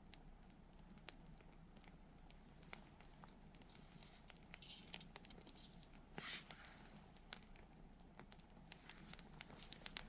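Wood campfire crackling quietly, with irregular sharp pops that come more often near the end and a couple of short hisses partway through.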